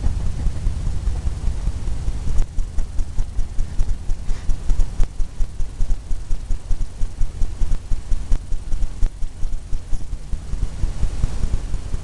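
A steady low rumble, with a faint run of rapid, even ticking through the middle.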